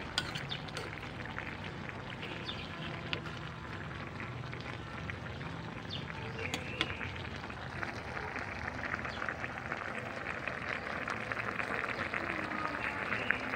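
Tilapia and vegetable broth simmering in a metal pan, a fine bubbling crackle that grows denser about eight seconds in, with a few light clinks of a ladle against the pan early on.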